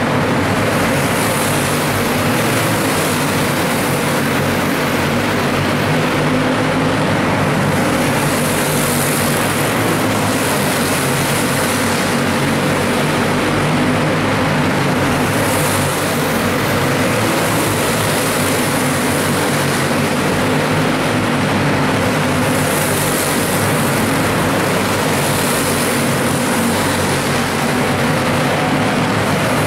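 Several racing karts' engines running together around an indoor track, a steady dense engine drone. The high buzz swells and fades every few seconds as karts come and go.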